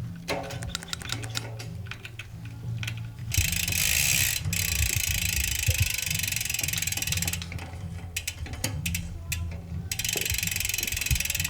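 Bicycle rear hub freewheeling as the wheel or cranks spin: a fast, even ticking of the freehub pawls. It comes in two long spells, about three seconds in and again near the end, with scattered mechanical clicks from shop work in between.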